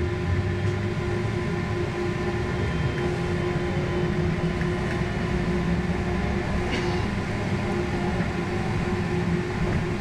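Inside a moving trolleybus: the electric traction drive hums steadily with several fixed tones over low road rumble.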